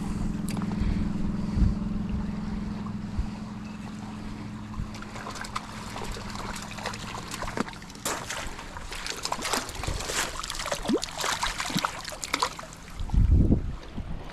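A steady engine hum for the first few seconds that fades away, then crackling and rustling noises, with low wind rumbles buffeting the microphone near the end.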